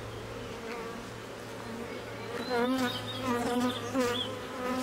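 Honey bees buzzing around an opened hive. There is a steady hum throughout, and from about halfway single bees pass close by, their buzz louder and wavering up and down in pitch.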